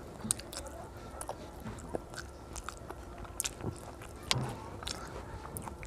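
A child chewing a mouthful of rice with soft, irregular mouth clicks and smacks, eating by hand, with one slightly louder knock about four seconds in.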